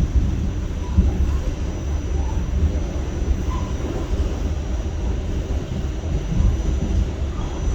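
New York City subway A train running along the track, heard from inside the car: a steady rolling rumble of wheels on rail, with a faint, steady high whine.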